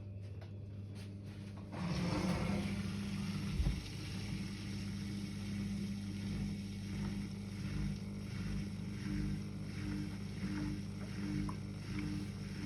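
Zanussi dishwasher running with a steady electric hum; about two seconds in, a louder, even rush of water starts as the machine takes in water.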